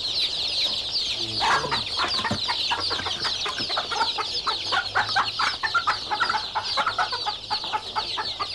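Caged hens clucking and squawking in a rapid, agitated run from about a second and a half in, as one is grabbed and lifted out of a wire cage. Behind them, a constant chorus of high, quick chirping from many small birds.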